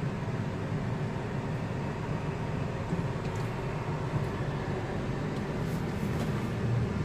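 Steady low hum of a car's engine and road noise heard from inside the cabin, with a few faint ticks in the second half.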